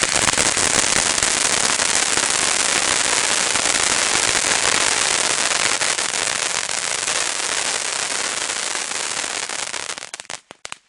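Planet X 'Happy Birthday' 500 g firework fountain spraying with a dense, steady hiss and crackle. About ten seconds in it dies away in a few last crackles and stops as the fountain burns out.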